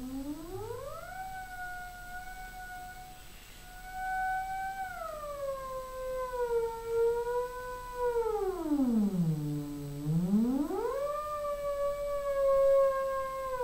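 Prepared theremin sounding one continuous gliding tone. It swoops up steeply at the start, holds high, sinks slowly, dives down low about two-thirds of the way through, then climbs back up and holds.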